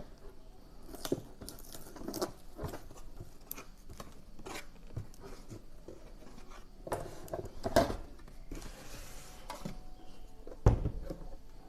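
Handling noises as a battery charger and its accessories are moved about and unpacked: scattered rustling, light clicks and knocks, with one louder thump near the end.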